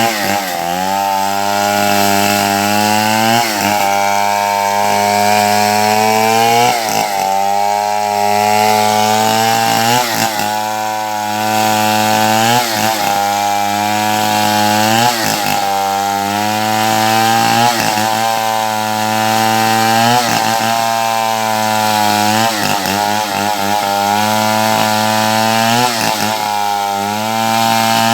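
Two-stroke chainsaw running hard while cutting wood, its engine pitch sagging briefly every two to three seconds and recovering as the chain bites.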